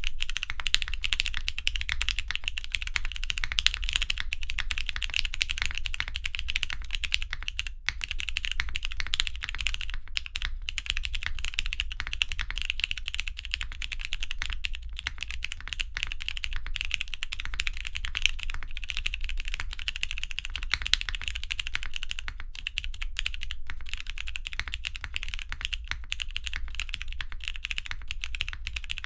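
Continuous typing on a custom mechanical keyboard with lubed, filmed and spring-swapped Cherry MX Brown tactile switches and GMK doubleshot ABS keycaps: a steady stream of key clacks and bottom-outs.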